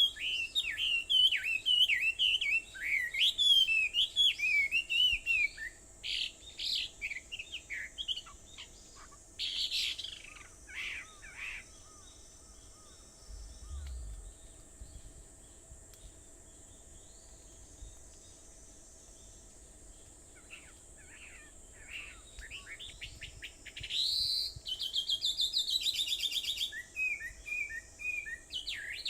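Wild songbirds singing and calling: a fast, varied warbling song at first, then scattered calls, and a rapid run of repeated notes about 24 seconds in before the warbling returns.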